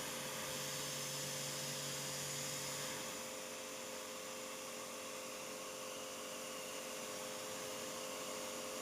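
Steady electric hum over a faint hiss, with a lower tone that drops out about three seconds in.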